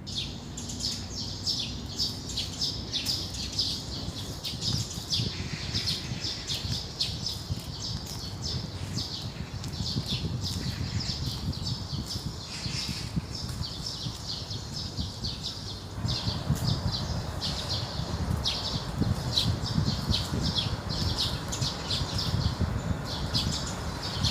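Many small birds chirping steadily in quick, short, high notes, over low wind noise that grows louder about two-thirds of the way through.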